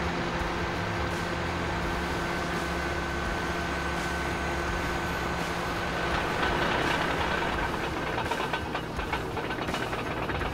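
Cat D9 bulldozer's diesel engine running steadily while it pushes a load of wood chips. About six seconds in it grows louder and a rattling clatter from the steel tracks joins it.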